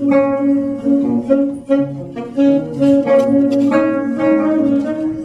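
Saxophone playing a melody of held notes, with other instruments sounding a steady lower note underneath.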